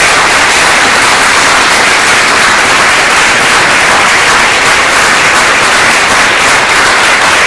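Audience applauding, a loud, dense and steady clapping.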